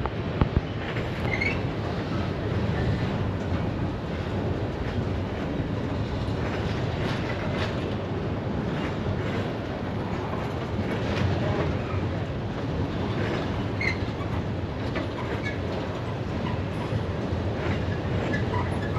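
Freight cars rolling past on the rails, a steady rumble with wheels clacking over rail joints and a few short wheel squeals.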